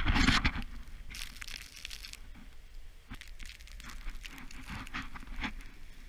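Snowboard sliding and carving over fresh powder: a crunchy scraping hiss in uneven surges, loudest in the first moments, then quieter with a few sharper scrapes.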